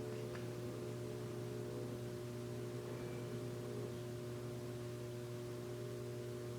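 Steady electrical hum made of several constant tones.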